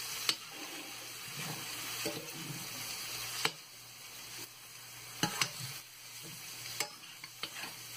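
Minced pork, onion and eggs sizzling in a stainless-steel frying pan as a spatula stirs and breaks up the eggs, with a steady hiss and several sharp taps and scrapes of the spatula against the pan.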